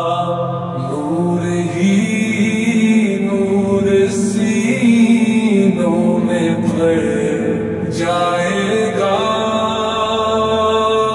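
A man singing an Urdu naat, a devotional song, in long held lines whose pitch bends and wavers.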